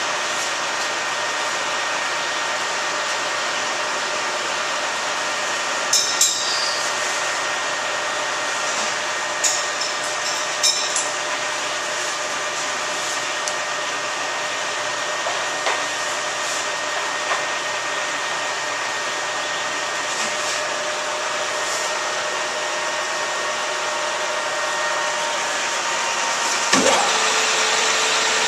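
Steady whir of running machine-shop machinery with several steady tones, and a few light metal clinks as tooling is handled at a lathe's tool post. Near the end a tone drops sharply and a new steady hum takes over.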